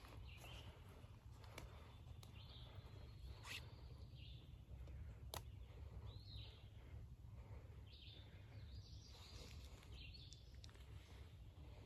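Quiet woodland ambience: birds chirping briefly now and then over a steady low rumble, with a couple of sharp clicks.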